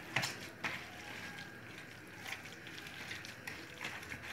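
A hand kneading minced meat with egg and chopped herbs in a plastic bowl: soft, irregular squelching, with a couple of sharper clicks in the first second.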